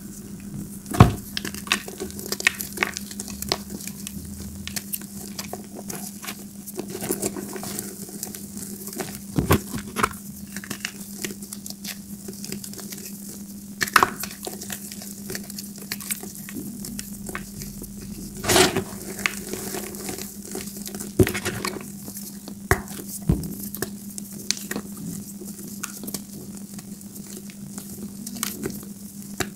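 Gym chalk lumps being crushed and crumbled by hand in a bowl of chalk powder: a continuous gritty crunching and rustling, with a few sharper cracks as pieces break. A faint steady low hum runs underneath.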